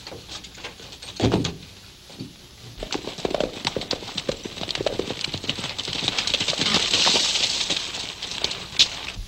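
Hooves of three ridden horses clip-clopping on a dirt track, growing louder as they approach. A brief low sound comes about a second in.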